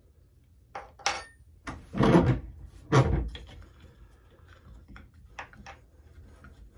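Small ball-peen hammer tapping a steel punch to drive the ejector pin into an AR-10 bolt held in a vise. There is a series of metallic taps, one with a brief high ring, two heavier blows around two and three seconds in, and a couple of lighter taps near the end.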